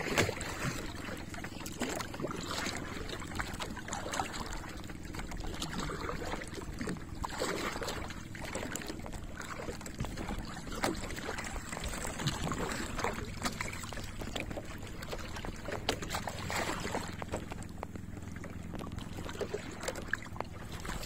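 A small boat's engine running steadily, with water splashing and rushing along the hull.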